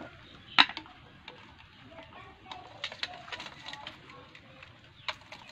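Hands handling fish in a metal basin of water: a sharp knock about half a second in, then scattered light taps and clicks.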